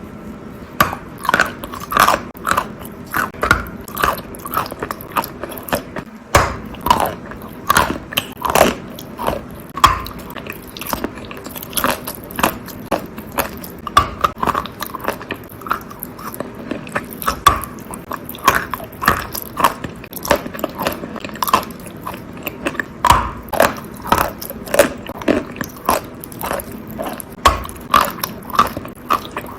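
Bites and chewing of an "Alenka" natural chalk tile partly coated in wet "Astana Pink" clay paste: a close series of sharp crunches, about one or two a second.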